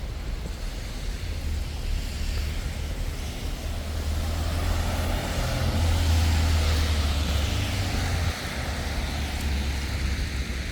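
Road traffic outdoors: a vehicle passing, swelling to its loudest about six seconds in and then fading, over a steady low rumble.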